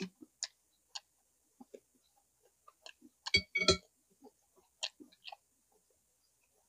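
Close-up mukbang eating sounds: someone chewing braised pork leg and rice, with scattered wet mouth clicks and lip smacks. A louder cluster of clicks comes a little past the middle.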